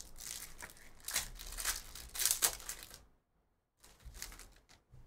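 Foil trading-card pack being torn open and crinkled: a crackling rustle for about three seconds, a short pause, then a little more crinkling of the wrapper.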